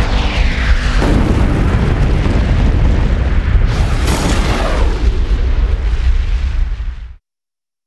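Sound-effect explosion of an asteroid impact: a loud, deep blast that surges about a second in, with rushing whooshes sweeping through it around four seconds in. It cuts off abruptly near the end.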